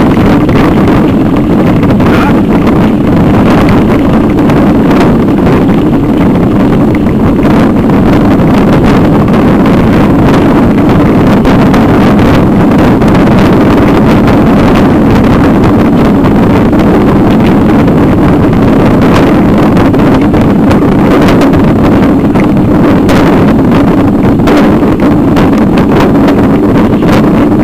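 Bicycle jolting over cobblestones: a loud, unbroken rumble and rattle with frequent knocks, with wind on the microphone.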